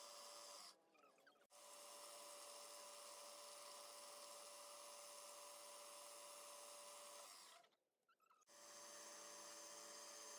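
Near silence: a faint steady hiss and hum that cuts out briefly twice, about a second in and near the end.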